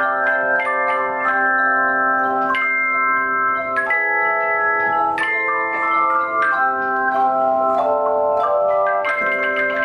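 Handchime ensemble playing a tune in chords: metal chime bars struck in groups, each note ringing on while new notes and chords come in every half second or so.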